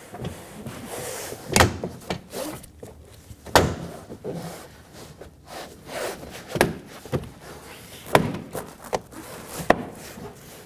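Toyota Corolla rear door trim panel being pressed onto the door, its push-in retaining clips snapping home with a series of sharp knocks, five of them loud, every second or two.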